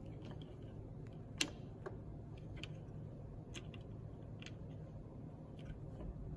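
Scattered small clicks and taps of a brake lever assembly being handled and fitted on an electric scooter's handlebar, with one sharper click about a second and a half in.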